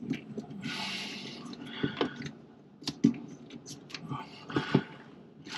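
Hands working a plastic push-to-connect water fitting on the supply hoses: irregular small clicks and knocks of plastic, with a couple of short rustling, rubbing passages as the collet is pressed in to release the tubing.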